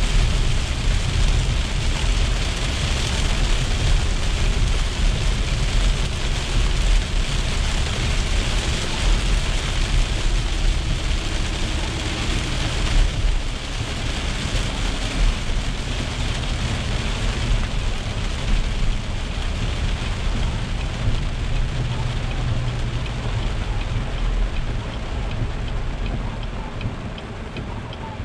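Heavy rain beating on a car's windshield and roof, heard from inside the cabin of the moving car, over the low rumble of tyres on a wet road. It eases a little near the end as the car slows to a stop.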